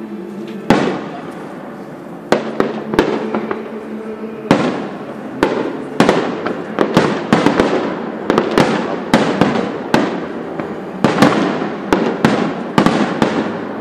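Fireworks display: aerial shells bursting with sharp bangs. The bangs are sparse at first, from about a second in, then come thick and fast in a rapid barrage from about six seconds in.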